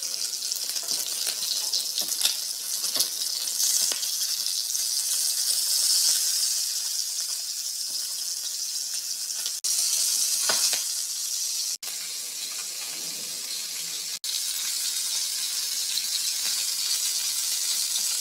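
Chicken leg quarters frying in hot oil in a pan: a steady sizzle with occasional crackles and pops, breaking off abruptly three times in the second half.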